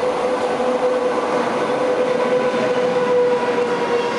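An SS8 electric locomotive and its passenger coaches running through a station at speed without stopping. The rolling noise is loud and steady, with a steady hum over it as the locomotive passes close by and the coaches follow.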